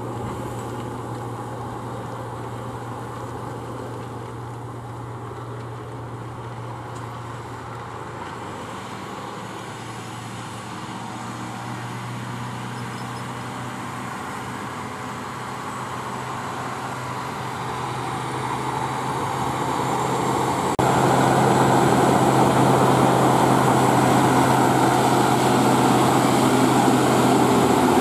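Case IH Quadtrac 620's six-cylinder diesel engine running steadily under load while it pulls a cultivator through stubble. The engine grows louder as the tractor comes closer, with a sudden step up in loudness about three quarters of the way through.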